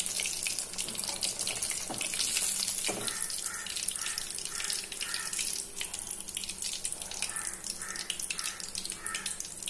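Katla fish steak frying in hot oil in a pan: a steady sizzle thick with tiny crackling pops. A few light knocks of the metal slotted spoon against the pan come in the first three seconds as the fish is turned and lifted.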